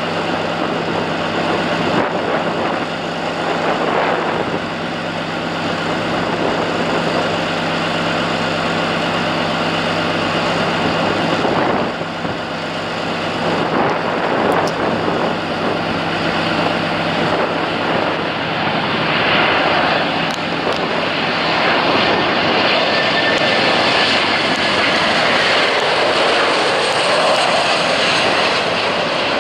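Jet engines of a Boeing 737-800 on final approach: a steady rushing jet noise that grows louder in the second half as the airliner descends to the runway. A steady low hum lies under the first twelve seconds and stops there.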